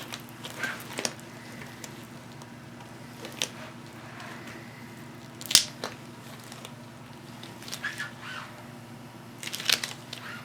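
Scattered handling noises during the shoe repair: small clicks, crinkles and taps, with one sharper click about five and a half seconds in and a quick cluster near the end, over a steady low hum.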